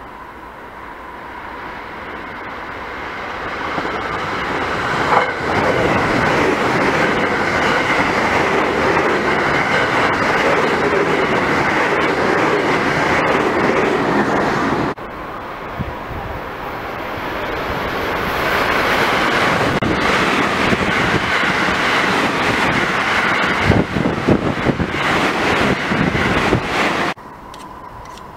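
JR West electric multiple-unit trains passing at speed: a rumble of wheels on rail grows over a few seconds into a steady loud run, then cuts off abruptly about halfway through, and a second train's pass builds up again with a burst of rapid clattering near the end before it also cuts off suddenly.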